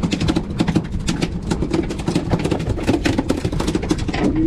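A freshly landed small tuna beating its tail against the aluminium boat deck, a rapid run of sharp taps like a drum roll, over the steady hum of the outboard motor.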